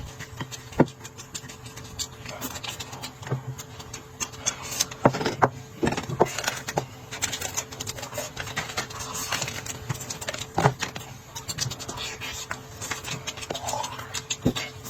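Eating at a table: utensils clicking and scraping against bowls and dishes in many short, irregular taps, over a steady low hum.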